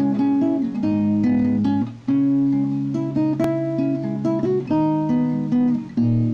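Background music: an acoustic guitar picking and strumming chords, the notes ringing on between changes.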